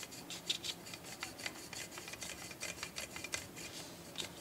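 Hand-sanding a 3D-printed plastic cage frame with fine abrasive paper: quick, uneven scratchy rubbing strokes, a few a second.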